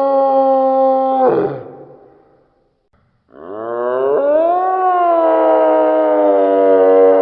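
A deer calling: a long, steady-pitched call that fades out a little over a second in, then after a short silence a second call that rises in pitch and then holds steady.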